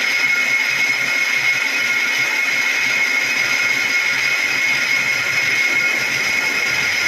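Metal lathe facing an engine flywheel: a steady cutting noise with a constant high-pitched ring as the tool skims the grooved, worn clutch face flat, the wear that causes clutch dragging.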